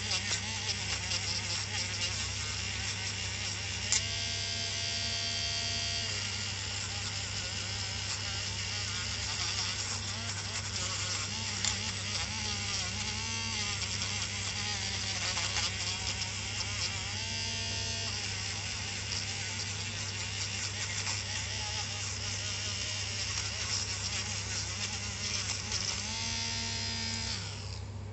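Small airbrush compressor running with a steady electric hum while an airbrush sprays with a continuous hiss of air. The hiss stops near the end and the compressor keeps humming.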